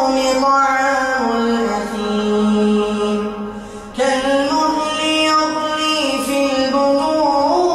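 A man's voice reciting the Qur'an in a slow, melodic chant, holding long notes. One phrase trails off and a new one begins about four seconds in.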